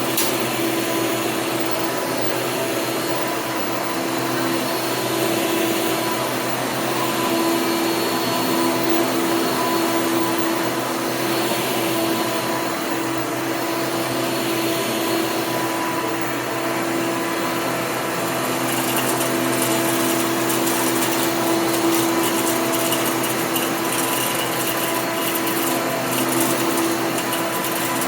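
Hoover upright vacuum cleaner running steadily with a constant motor hum and whine, during a carpet pickup test. A patter of small clicks joins it over roughly the second half.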